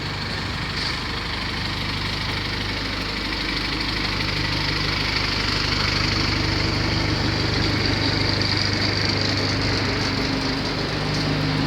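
A motor vehicle's engine running steadily at idle, a low even hum that grows a little louder about four seconds in.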